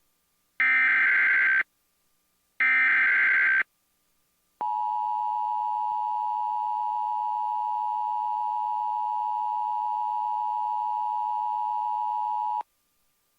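Emergency Alert System SAME header: two bursts of digital data tones, each about a second long. After them comes the NOAA Weather Radio warning alarm, a single steady tone near 1050 Hz held for about eight seconds. It marks the start of a new alert, here a tornado warning.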